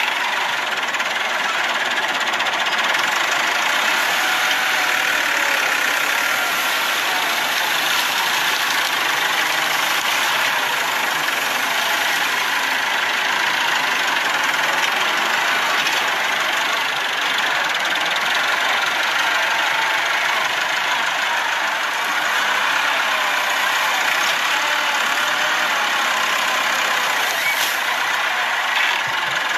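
Massey Ferguson 385 tractor's diesel engine running steadily and loudly, with no pauses or changes in speed.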